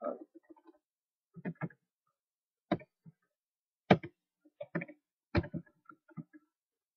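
Computer keyboard keys clicking as someone types, about ten short, unevenly spaced keystrokes.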